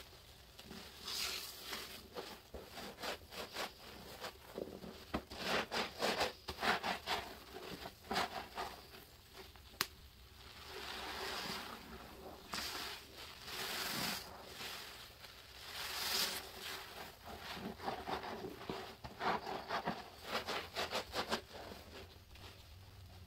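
A large foam sponge loaded with thick soapy paste being squeezed and kneaded in rubber-gloved hands: wet squelching and crackling suds in irregular bursts, with short pauses between squeezes.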